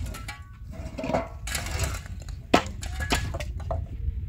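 Scattered clinks and knocks of cinder blocks and broken rubble being handled and set down, with one sharp knock about two and a half seconds in.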